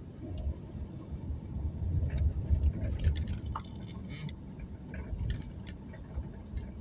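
Low rumble of a car driving, heard from inside the cabin, with scattered clicks and rattles in the middle stretch.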